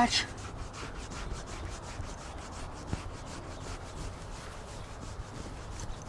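Fingers scratching a draft horse's coat: a quiet, rhythmic rasp of quick repeated strokes.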